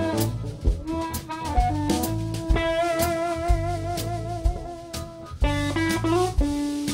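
Blues band playing live: electric guitar, bass guitar and drum kit, with a lead line of long held notes that waver in pitch and bend up, about five seconds in.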